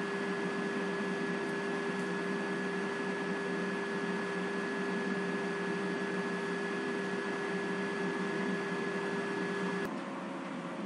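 Steady electrical hum and hiss of room background noise, with two steady tones held throughout. About ten seconds in, a click and an abrupt change in the hum.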